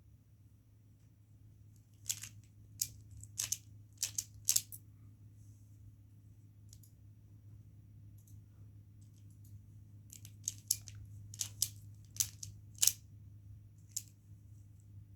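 Triangular twisty puzzle (pyraminx) being turned by hand, its layers snapping round in sharp clicks. There are about five clicks between two and five seconds in, then a quicker run of about eight between ten and fourteen seconds in.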